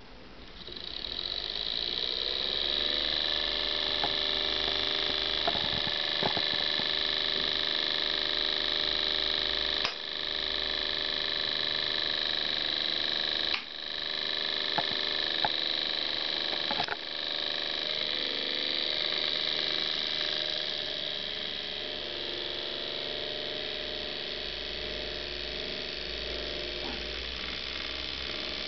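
Small homemade low-voltage electric motor spinning, a steady high whine that starts about half a second in. It dips briefly three times around the middle and runs somewhat quieter near the end.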